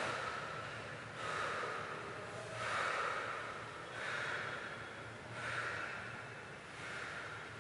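A person breathing heavily and raggedly through the mouth, one loud breath about every second and a half.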